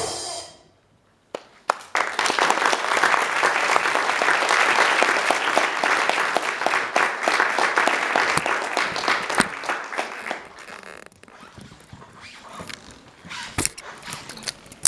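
Stage music breaks off; after about a second of near silence an audience breaks into applause that lasts around eight seconds and then dies away, with a few sharp knocks near the end.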